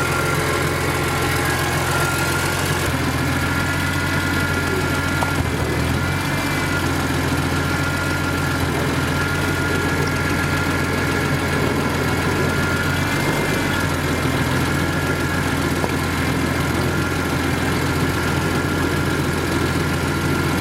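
BMW E46 M3's S54 straight-six engine idling steadily, its note shifting briefly about five and again about thirteen seconds in.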